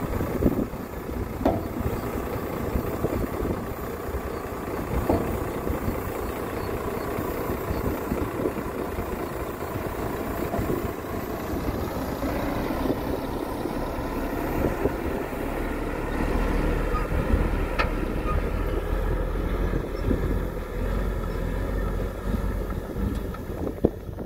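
Heavy tipper dump truck's diesel engine running while its raised dump body is lowered and the truck then pulls away, with a few knocks in the first seconds.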